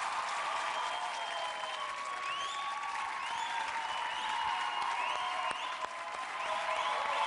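Studio audience applauding and cheering, with several short rising whistles.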